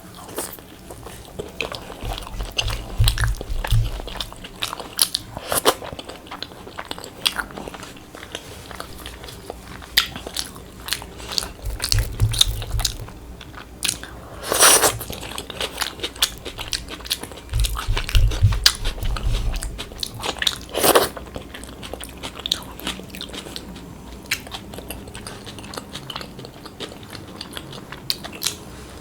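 Close-miked eating of puffed fried bread and crispy fried potato: steady chewing with wet clicks and crunches. Two louder bites come about 15 and 21 seconds in, and a few low thuds sound along the way.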